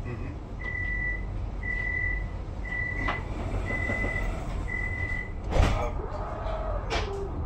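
A tram's door warning signal: five high beeps about a second apart, over the tram's low rumble. Two sharp clunks follow, the loudest about a second after the last beep, as the sliding doors shut.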